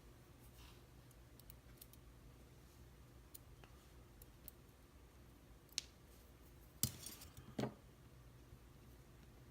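Small metal clicks and ticks from the pins and tools of a Mul-T-Lock Classic cylinder as it is taken apart. Faint scattered ticks are followed by three sharper clicks near the end, over a low steady hum.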